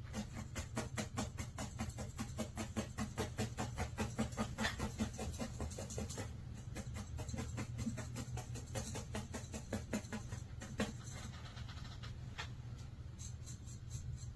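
Felting needle stabbing repeatedly into wool, a quick even run of short crunchy pokes at about five a second that slows to a few scattered jabs near the end, over a steady low hum.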